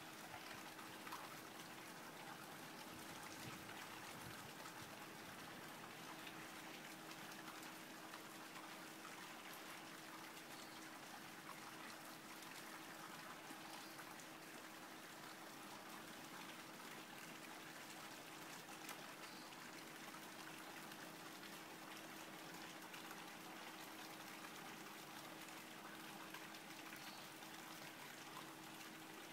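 Near silence: a faint, steady background hiss with a low, steady hum underneath.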